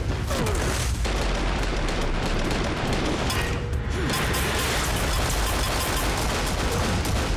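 Film-style action soundtrack: score music mixed with rapid pistol gunfire.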